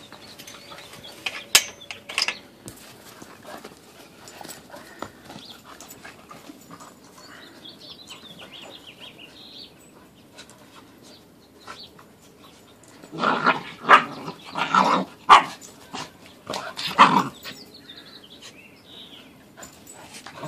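Puppies playing, with one barking in a burst of about half a dozen loud barks two-thirds of the way through and another bark a moment later.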